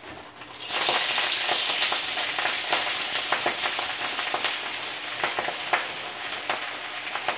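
Fresh spinach and baby kale dropped into hot safflower oil in a preheated wok: a sudden loud sizzle under a second in, then steady frying with scattered crackles.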